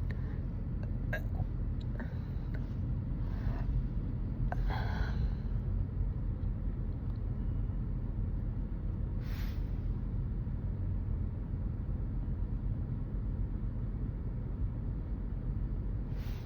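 A person's short breaths or gasps, about three and five seconds in and again around nine seconds, over a steady low rumble.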